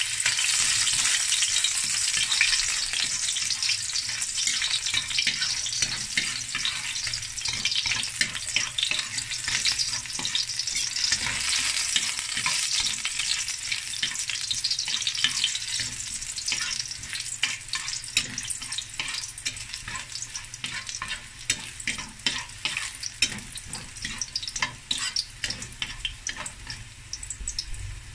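Chopped garlic sizzling in hot oil in a stainless steel wok, stirred with a metal ladle that scrapes and clicks against the pan. The sizzle is loudest at first and gradually eases.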